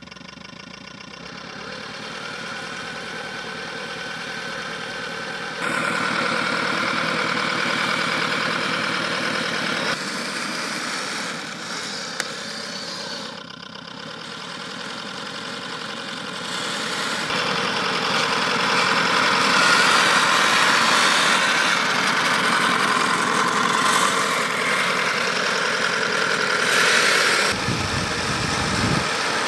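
A 3D-printed radio-controlled model tank running as it drives over grass, a steady engine-like mechanical drone that grows louder as the tank comes closer.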